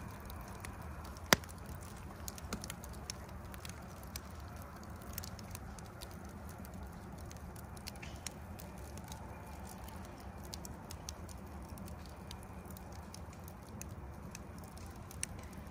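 Wood logs burning in a metal fire pit, crackling with scattered sharp pops over a low steady background. One loud pop comes just over a second in.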